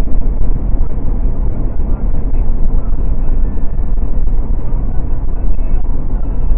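Car cruising at highway speed: a steady, loud low rumble of road and wind noise.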